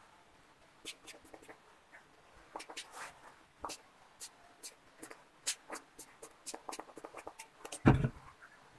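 Fingers rubbing and squeezing twisted 4C hair, a faint scratchy crackling and rustling made of many short clicks, with one louder dull bump about eight seconds in.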